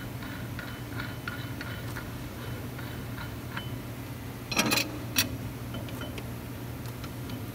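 Small metallic clicks and taps as a wire drawing machine's capstan is handled and fitted on its shaft. About four and a half seconds in comes a louder, sharp metal clatter, with one more sharp click just after. A steady low hum runs underneath.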